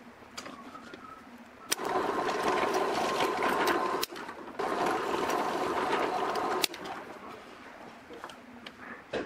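Drill press running as a twist bit bores into a wooden cylinder, in two steady runs of about two seconds each with a short dip between them, each ending in a sharp click. After it stops, light knocks as the wooden piece is turned in its metal jig.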